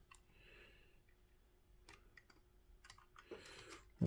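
Faint, scattered clicks and taps of small plastic model-kit parts and hobby tools being handled while a part is lined up for gluing, with a sharper click right at the end.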